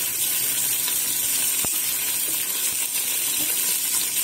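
Sliced onions and green chillies sizzling in hot oil in a steel pan, a steady high hiss, with one sharp tap about a second and a half in.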